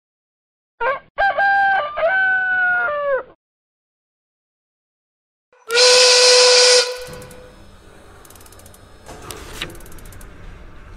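A rooster crows. A few seconds later a factory steam whistle blows a steady note for about a second over a loud hiss of steam. It is followed by the steady clatter of ratcheting gears and machinery.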